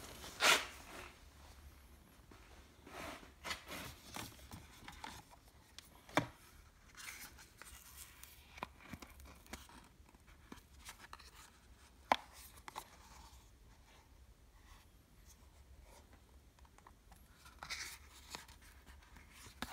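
Cardboard eyelash boxes being handled: scattered rustles and scrapes of paperboard, with a few sharp clicks, over a faint steady low hum.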